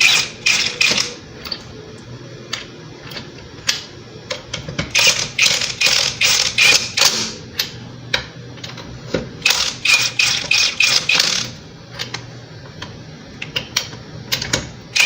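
Cordless impact wrench hammering in forward, driving lug nuts back onto a car wheel. It comes in three main bursts of rapid impacts: one at the start, one about five seconds in, and one about ten seconds in.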